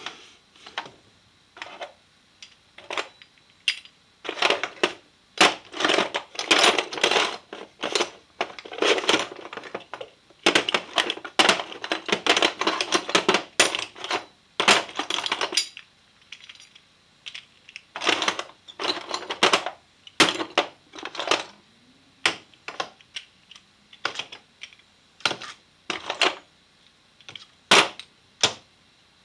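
Casters salvaged from photocopiers, together with hard plastic and metal parts, clattering and rattling in a wooden drawer as a hand rummages through them. The sound comes in bursts of rapid clicks and knocks, busiest in the first half, then thins to scattered single knocks.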